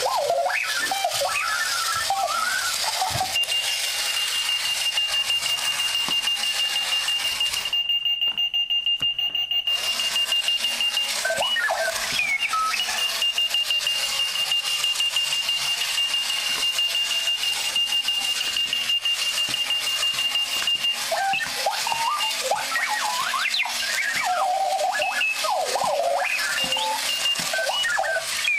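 Runaway wheeled alarm clock going off: a stream of robot-like chirping bleeps that jump up and down in pitch, with a long, steady high beep held for several seconds twice, over a constant rattling hiss that drops out briefly about eight seconds in.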